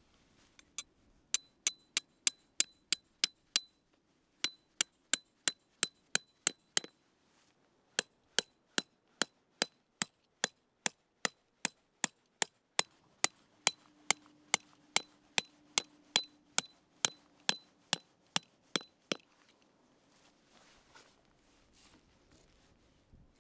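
Hammer blows on metal, evenly paced at about four a second, each with a short metallic ring. They come in three runs with brief pauses between them, and the last and longest run stops about nineteen seconds in.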